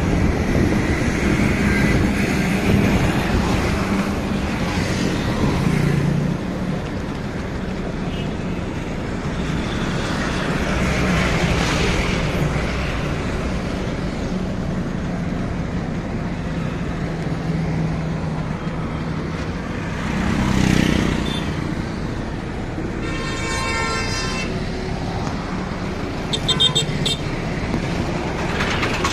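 Road traffic: a steady engine hum with tyre noise, and other vehicles swelling past now and then. Near the end a vehicle horn honks, a longer blast and then a short toot a few seconds later.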